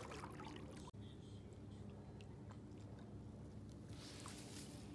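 Faint handling rustle of a cast net, then a soft rising swish in the last second as the net is thrown out through the air.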